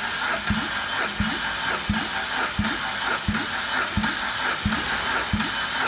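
Mitsubishi 4A92 1.6-litre four-cylinder engine cranking over on its starter without firing, for a compression test on the third cylinder. It is a steady whirring with a heavy beat about every 0.7 s as the piston comes up on compression, while the gauge builds to about 15 kg/cm².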